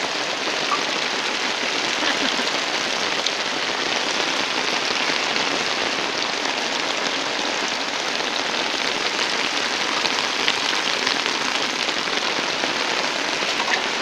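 Heavy rain runoff: a torrent of muddy water pouring down a dirt footpath, making a steady rushing, splashing noise with no let-up.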